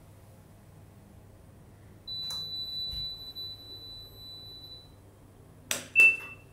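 Elevator control panel: a long, steady high electronic beep starts about two seconds in, and near the end a floor button is pressed with two sharp clicks and a short beep, the loudest sound here.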